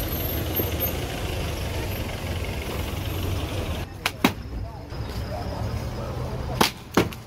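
Steady traffic rumble, then, from about four seconds in, sharp knocks in two pairs as a sledgehammer strikes white plastic pipe posts set in brick paving.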